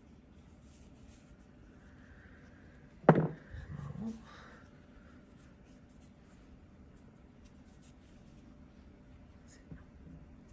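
Faint rustling of hands working a crochet hook and yarn. A sharp thump about three seconds in is the loudest sound, followed by a brief low sound, and a small click comes near the end.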